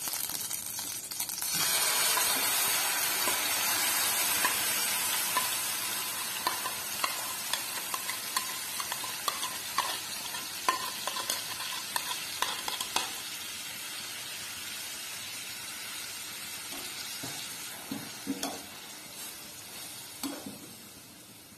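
Yogurt-marinated chicken hitting hot ghee in a stainless steel frying pan: the sizzle jumps up about a second and a half in and slowly dies down. Scattered clicks and knocks follow as the bowl tips onto the pan and a spatula stirs the chicken.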